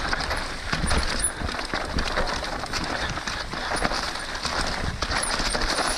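Full-suspension mountain bike riding fast down a rough dirt trail: tyres rushing over dirt, roots and rocks, with a steady clatter of chain and frame knocks and wind noise.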